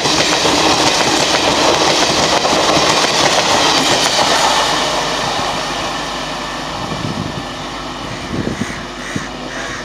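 Express passenger coaches passing at speed, a loud rush of wheels running over the rails. The noise fades after about five seconds as the end of the train moves away.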